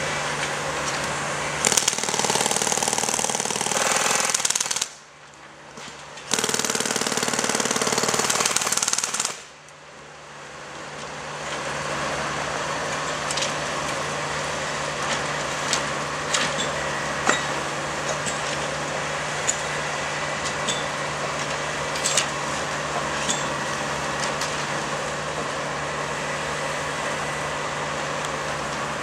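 Railroad track-maintenance machinery working during tie replacement: two loud, jackhammer-like bursts of about three seconds each in the first ten seconds, each stopping abruptly. After them a steady engine runs on with a low hum and occasional sharp metallic clicks.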